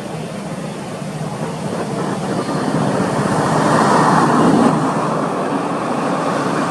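Road traffic noise, a steady rush that swells as a vehicle passes about four seconds in and then eases off.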